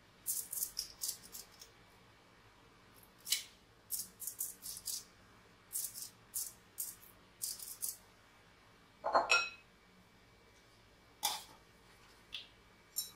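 Short, irregular crackles of aluminium foil as a silicone pastry brush dabs butter over pizza dough on a foil-lined baking tray. About nine seconds in comes a single brief squeak, rising slightly in pitch and louder than the crackles.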